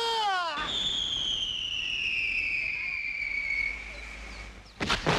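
Slapstick sound effect: a long whistle sliding steadily down in pitch, then a loud crash near the end.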